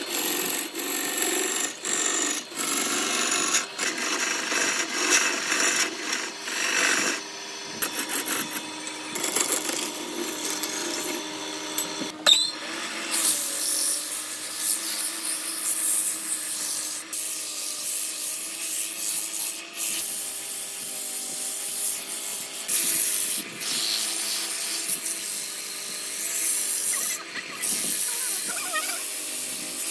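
Wood lathe spinning a large blank while a hand-held turning tool cuts it, shavings scraping and chattering off. About twelve seconds in, the cutting gives way to hand sanding of the spinning wood with sandpaper: a steady rubbing hiss over the lathe's running hum.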